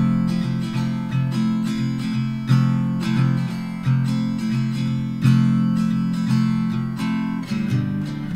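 Background music: an acoustic guitar strumming chords at an even pace.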